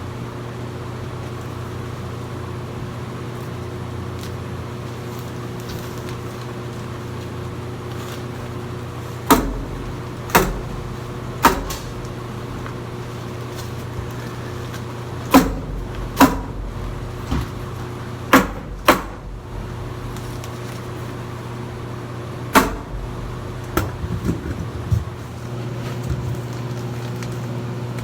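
A steady machine hum with a series of about ten sharp clacks, irregularly spaced, in the middle part.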